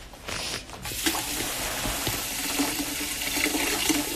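Water running from a tap into a sink, a steady rush that starts about a second in.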